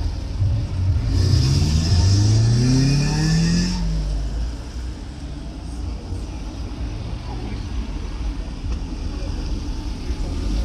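A car engine revving up as the car accelerates, rising in pitch for about two and a half seconds and then stopping short, leaving a lower steady background of idling cars.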